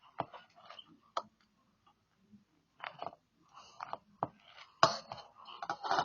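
Slime being squeezed and worked by hand: irregular sticky clicks and pops with short squelching bursts, busiest near the end.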